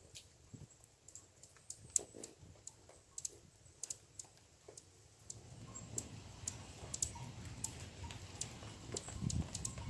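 Irregular sharp clicks and light taps from squirrels moving about and feeding, with a low rumble rising about five seconds in.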